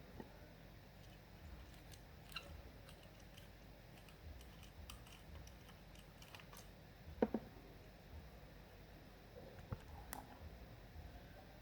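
Scattered small clicks and light taps of hand-handled small parts, with one louder knock about seven seconds in and two more near the end.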